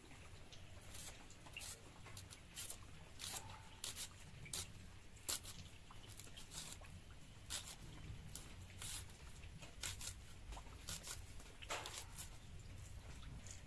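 Dry onion skin crackling and tearing as it is peeled off by fingers: irregular, faint crinkly rips and clicks, a few at a time, over a low background hum.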